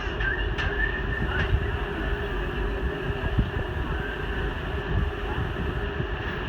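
Steady low rumble and drone of a ferry's engines heard on board, with a constant hum running through it.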